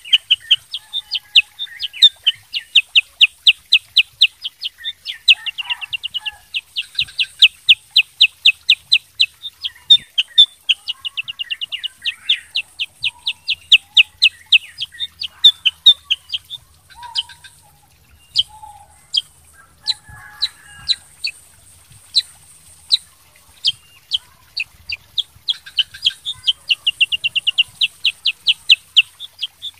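Black-headed bulbul (kutilang sutra) singing long runs of fast, sharp repeated notes. Midway the runs thin out to scattered single notes, and they turn into a rapid chattering run again near the end.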